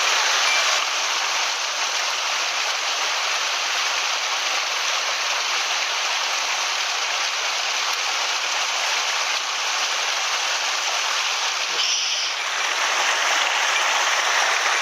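Small mountain headwater stream flowing and splashing over its bed, a steady, even rush of water.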